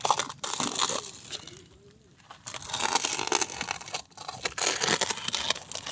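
Plastic shrink-wrap on a new motorcycle tyre being slit with a knife and torn open, crinkling and crackling, in two spells with a short pause about two seconds in.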